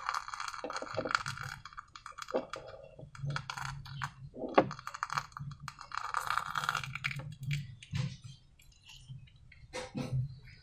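Slime being handled and squished by hand: a run of small crackling clicks and sticky pops, with one sharper click about four and a half seconds in.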